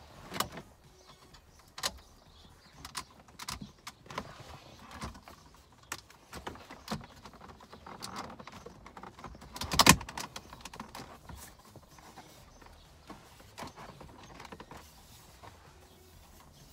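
Plastic dashboard trim being handled and pressed into place: scattered light clicks and knocks, with one louder knock about ten seconds in, as the centre vent trim panel of a BMW F10 is fitted back into the dash.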